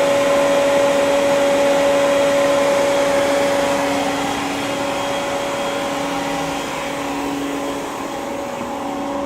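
Steady machinery drone of a powered-up CNC turning center idling, its motors and fans humming with two steady tones. It grows somewhat quieter about halfway through.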